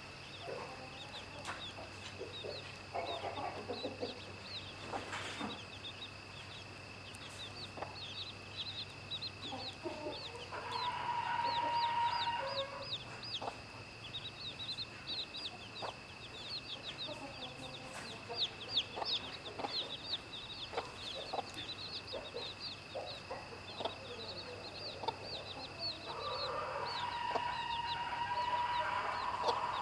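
Chicks peeping continuously in short, high, rapid calls, while a hen clucks: once about eleven seconds in and again, louder and longer, from near the end. A faint steady high tone runs underneath.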